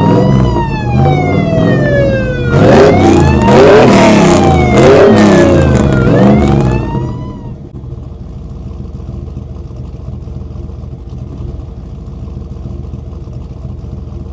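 Police siren wailing, its pitch rising quickly and sliding slowly down again, with a second overlapping wail from about two and a half seconds in. The sirens stop about seven and a half seconds in, leaving a steady low drone.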